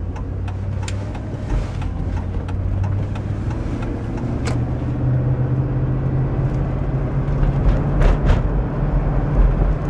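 Cab interior of a Chevy Avalanche with its 5.3-litre V8 running as the truck drives through a tight right turn, the engine note stepping up partway through, with a few light clicks. No loud power steering whine comes on during the turn that normally brings it out.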